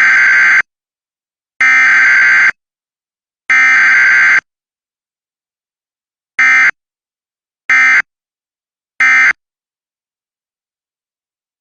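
Emergency Alert System SAME data bursts: three buzzy digital header bursts of about a second each, encoding a Civil Danger Warning, then a pause and three short end-of-message bursts. No attention tone or voice message sounds between the header and the end-of-message bursts.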